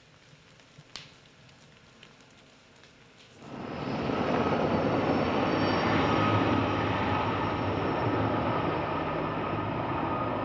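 Faint crackles for the first few seconds. Then, about three and a half seconds in, a firefighting helicopter's turbine and rotor noise cuts in loud and steady, with a steady high whine, as it flies over dropping water.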